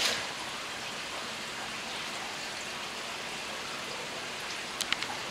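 Steady hiss of running and splashing water from aquarium filtration, with a few light clicks near the end.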